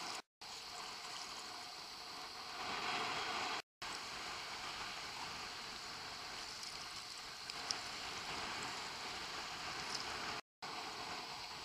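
Steady rush of choppy seawater and wind close to the water surface, broken three times by a brief silent gap.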